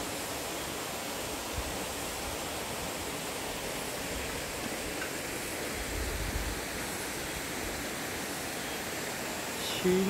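Mountain stream running over rocks: a steady rush of flowing water.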